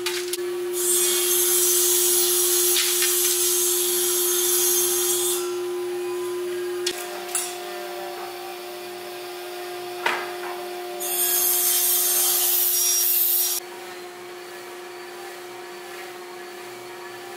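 Wooden boards sliding and rubbing across a machine table in two long passes, one starting about a second in and a shorter one past halfway, with a few sharp knocks of wood set down between them. A steady hum runs underneath throughout.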